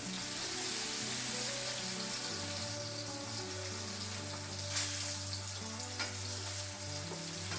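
Salmon steak sizzling steadily in a frying pan, with a couple of light clicks about five and six seconds in.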